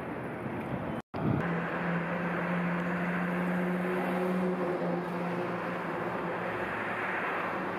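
Street traffic ambience: a steady rush of passing vehicles with an engine's low hum. The sound drops out for a moment about a second in.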